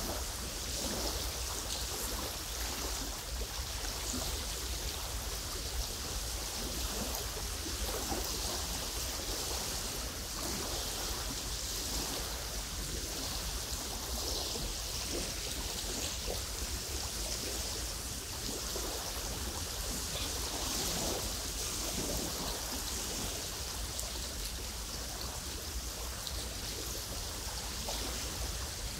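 Small waves lapping irregularly at a lake shore over a steady rush of wind.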